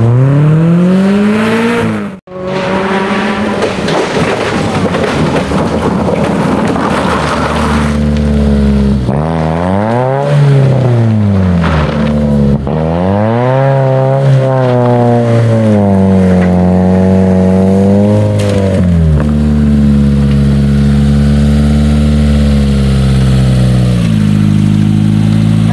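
Rally car engines at high revs, their pitch climbing and falling again and again as the cars accelerate and slow on a stage. There is a brief break about two seconds in, and the revs hold steadier for a few seconds near the end.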